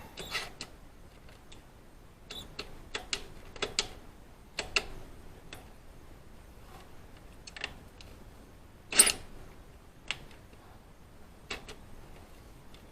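Thread tap in a hand tap wrench being turned back out of a threaded bolt hole: irregular light metallic clicks as the wrench is worked, with one louder click about nine seconds in.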